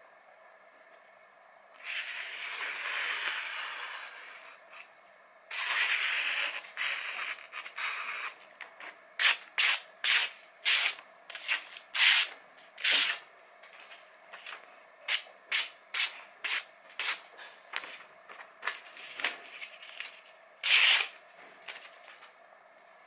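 Chef's knife slicing through a sheet of glossy printed paper: two longer stretches of paper noise about two and five seconds in, then a quick run of short, crisp cuts one after another, the last loud one near the end.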